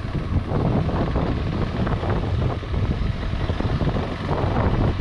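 Motorcycle engine running at low speed while riding a dirt track, with the rumble of the tyres over the rough surface.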